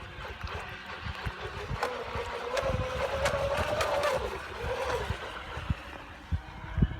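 Aeronaut Princess RC model boat's brushless electric motor and propeller giving a steady whine that swells about two seconds in, drops back after about four seconds, and swells briefly once more. Wind buffets the microphone with a low rumble throughout.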